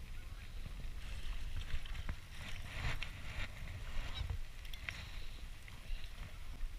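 Outdoor sound from a small boat on a lake: low wind rumble on the microphone and water moving against the hull, with a few light clicks and rustles of rod and reel handling as a jerkbait is reeled in.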